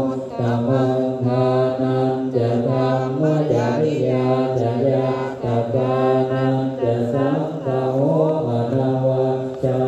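A group of Theravada Buddhist monks chanting Pali in unison, low male voices on a near-monotone that steps up and down in pitch and carries on without a break.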